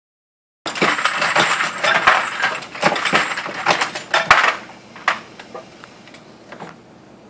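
Metallic clattering and clicking of brass cartridge cases and parts on a Dillon 650 progressive reloading press being handled at the shell plate, dense for about four seconds, then a few single clicks.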